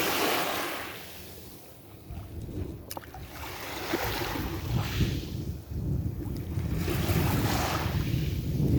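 Small waves washing up on a shoreline, swelling and falling away every few seconds, with wind rumbling on the microphone.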